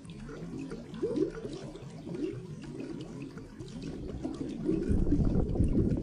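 Underwater bubbling and gurgling, many small bubbles rising, with a louder low rumble swelling in near the end.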